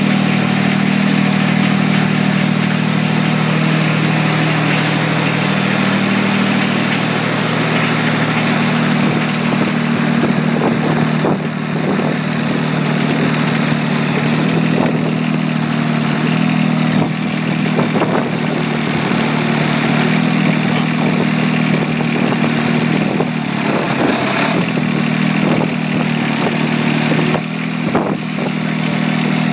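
John Deere 455 garden tractor's three-cylinder diesel engine running at a steady speed, warming up after a cold start, with a few short knocks.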